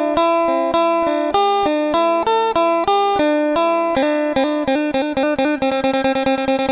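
Background music: a plucked guitar melody played as a steady run of notes, which come faster from about four seconds in.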